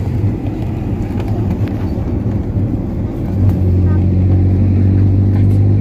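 Car engine and road noise heard from inside the cabin while driving. About three and a half seconds in, the engine settles into a louder, steady drone.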